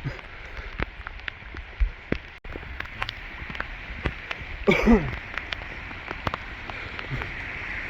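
Torrential rain pouring down, a steady hiss with many sharp individual drops splattering close by. A short falling human exclamation breaks in a little past halfway.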